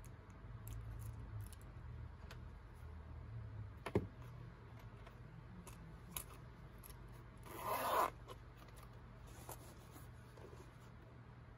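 Things being packed into a fabric backpack: faint rustling and handling, a sharp click about four seconds in, and a brief zipper pull near eight seconds, the loudest sound. A low steady hum lies underneath.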